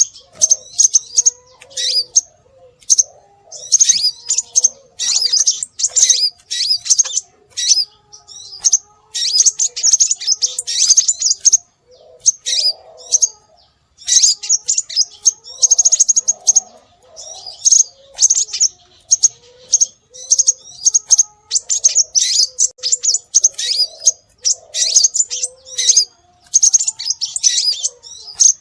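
Scarlet minivet (sepah raja) calls used as a bird-luring track: rapid high-pitched chirping in bursts of about a second with short gaps, repeated throughout, over a fainter low wavering call.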